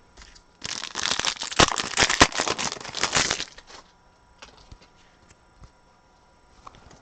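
Foil trading-card pack wrapper being torn open and crinkled, a dense crackling rustle lasting about three seconds, followed by a few faint light ticks.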